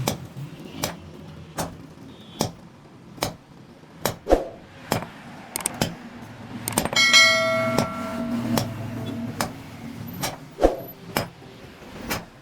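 Hammer blows on metal, a little faster than one a second, with a longer ringing metallic clang about seven seconds in.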